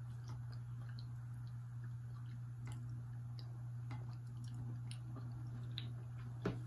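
Faint, scattered small sticky clicks and squishes from soft mochi ice cream being handled and chewed, over a steady low hum, with one sharper click about six and a half seconds in.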